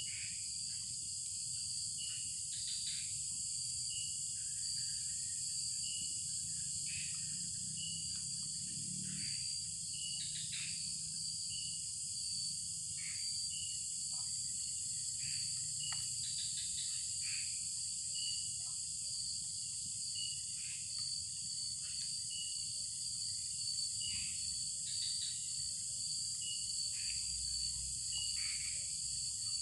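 A forest insect chorus with a continuous shrill, high-pitched drone of crickets. Over it come regular short chirps about once a second and now and then a short call sliding downward, above a low steady rumble.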